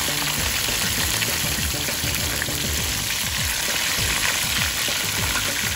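Duck heads deep-frying in a wok of hot oil: a steady, dense sizzle and crackle of bubbling oil.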